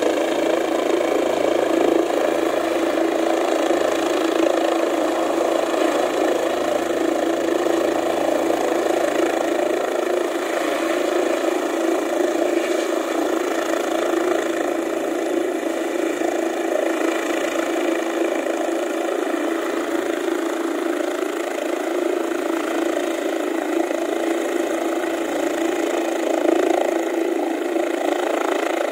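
Helicopter's turbine engine and rotor running steadily, a constant mechanical drone with a steady tone and higher whine above it.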